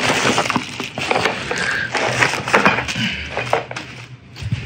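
Cardboard box and packing inserts being handled, giving a busy run of crackles, rustles and scrapes that thins out near the end.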